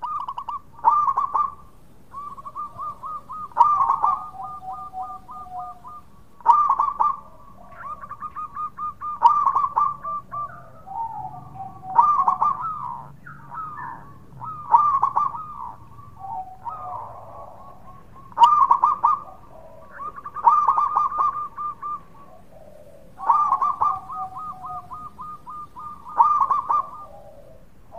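Zebra dove (perkutut) singing its staccato cooing song. A phrase comes every two to three seconds, each a quick run of clipped, high cooing notes.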